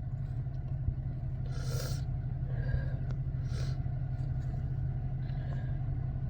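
A steady low rumble with a person breathing audibly between sneezes, three short breaths about one and a half, three and a half and five and a half seconds in.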